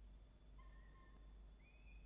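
Faint, thin begging calls of downy peregrine falcon chicks as an adult feeds them. One short call comes about half a second in, and a higher, longer one begins about a second and a half in, over a low steady hum.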